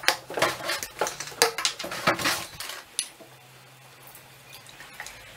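A plastic milk jug and a SodaStream bottle being handled on a wooden table: a run of sharp knocks and clatters for about three seconds, then a quieter stretch while milk is poured from the jug into the bottle.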